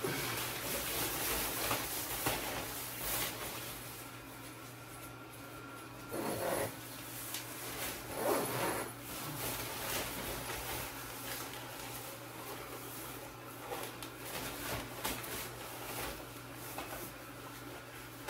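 Fabric of an inflatable costume rustling and rubbing as it is pulled on and fills with air, with louder rubbing about six and eight seconds in. A steady low hum from the costume's battery-powered blower fan runs underneath.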